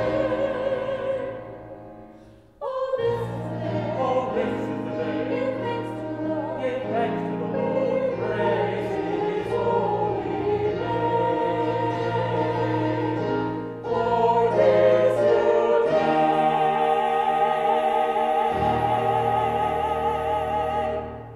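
A small mixed choir singing a hymn with vibrato, accompanied by a keyboard. The singing breaks off briefly about two seconds in, and near the end a final chord is held for several seconds and then released.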